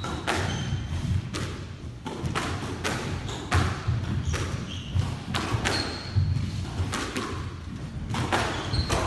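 Footsteps thudding on a wooden squash-court floor during fast lunging footwork, about one to two sharp thuds a second, with a few brief high squeaks of court shoes.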